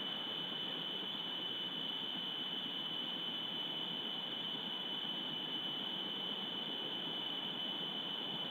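A continuous high-pitched whine over a steady hiss, unchanging throughout, with no distinct calls or knocks.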